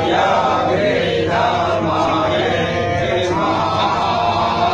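Temple aarti chant: many voices chanting a Shiva hymn together, steady and unbroken.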